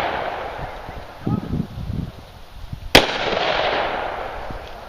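A single shot from a Taurus 617 .357 Magnum revolver about three seconds in, its sharp report echoing for over a second. The echo of a previous shot is dying away at the start.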